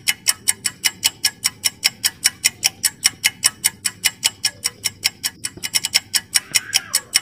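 Clock-ticking sound effect of a quiz countdown timer, even ticks at about five a second.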